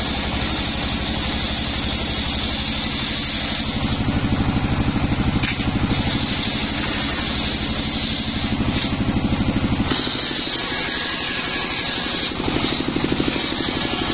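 Engine-driven circular saw bench ripping a teak plank. The engine runs with a steady pulsing beat under the hiss and whine of the blade cutting, and the cutting sound breaks off briefly a few times.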